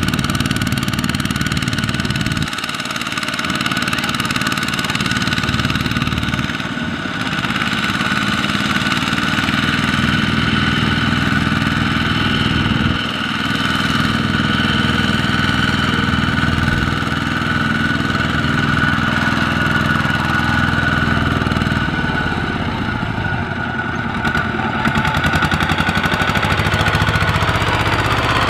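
Single-cylinder diesel engine of a two-wheel walking tractor running steadily under load as it drags a loaded trailer through deep mud, with a fast regular pulse and a few brief dips in level.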